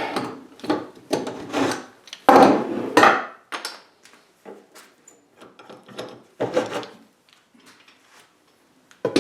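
Woodworking clamps being loosened and lifted off a glued-up wooden piece: a string of separate rattles, clicks and wooden knocks. The louder ones come in the first three seconds and again past the middle, thinning to faint clicks near the end.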